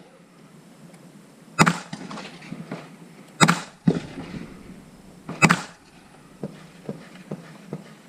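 Three gunshots about two seconds apart, followed by a few lighter clicks.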